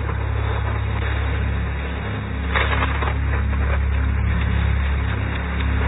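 Rain hissing over a steady low hum, with a denser spell of patter about two and a half seconds in.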